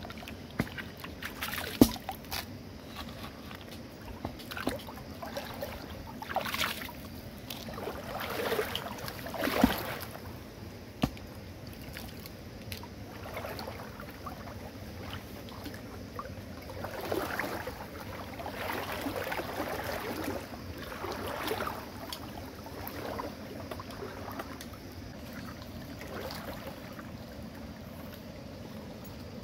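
Water sloshing and splashing in shallow river water as hands wash freshwater mussels, in irregular swells with a few sharp knocks, the loudest near two seconds and ten seconds in.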